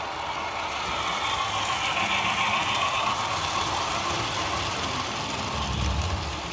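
Model passenger train running past close by, its wheels rolling on the track in a steady rush. It grows louder over the first couple of seconds as the train nears, with a low rumble near the end as the last cars go by.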